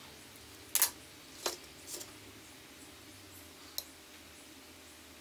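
Light handling noises as the backing is peeled off double-sided tape on a small brass plate and the plate is pressed onto a wooden base: three short scratchy scrapes in the first two seconds, the first the loudest, then a small click.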